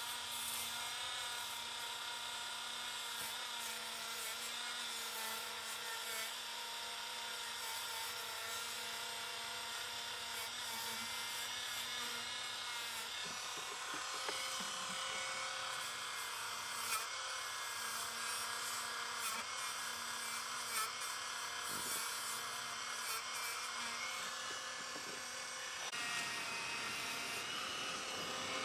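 A Dremel rotary tool running steadily with an abrasive brush rubbing against a battery terminal to clean it, its whine shifting slightly in pitch as the load changes around the middle and near the end.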